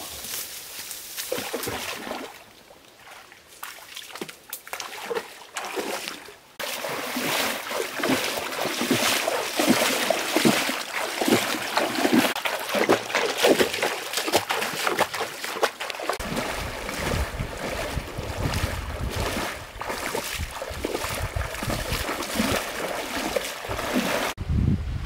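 A person wading fast through a shallow stream, water splashing and sloshing around the legs in a dense, irregular run of splashes that sets in about six seconds in. A low rumble joins about two-thirds of the way through.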